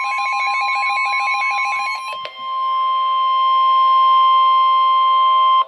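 NOAA Weather Radio warning alarm: a steady, loud high tone at about 1 kHz. For the first two seconds a warbling, beeping electronic alarm pattern is layered over it; then the steady tone sounds alone and cuts off abruptly near the end. The tone signals that an emergency weather message is about to follow.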